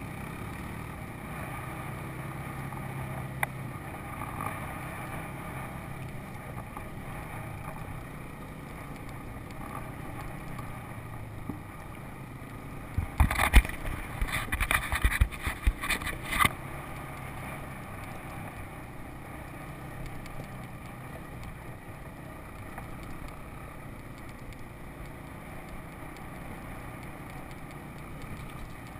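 Four-wheeler (ATV) engine running steadily while riding a rough dirt trail. About halfway through comes a few seconds of loud knocks and rattles as the machine jolts over sticks and rough ground.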